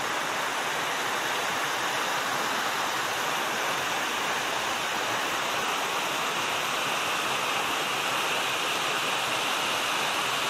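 Small stream rushing over rocks in a low cascade: a steady, unbroken rush of water.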